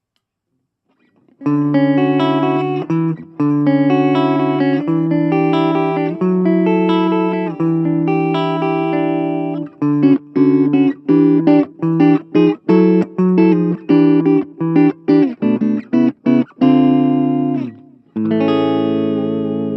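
Electric guitar (PRS Custom 22) played clean through a Blackstar Fly 3 mini amp. After about a second and a half of silence it plays ringing held chords, then a run of short, choppy strummed chords, then ends on sustained chords after a brief pause.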